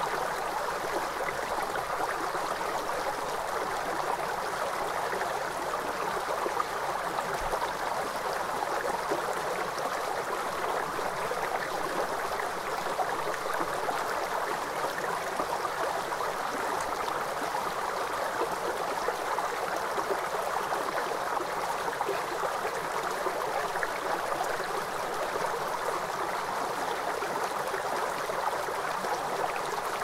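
River water flowing over rocks: a steady, even rushing.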